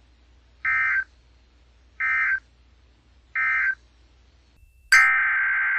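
Emergency Alert System SAME data bursts: three short bursts of data tones about a second apart, the end-of-message code closing the warning. Near the end, after a click, a longer burst of the same tones begins: the header of the next alert.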